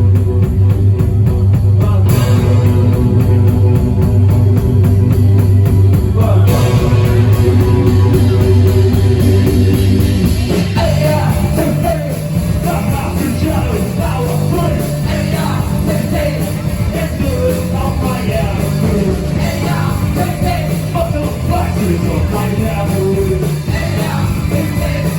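Live rock band playing loud: a heavy, steady bass and guitar sound, with a voice singing over it from about halfway through.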